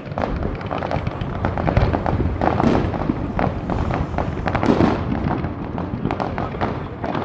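Fireworks going off in quick succession: a dense run of overlapping pops and crackles with several louder bangs among them.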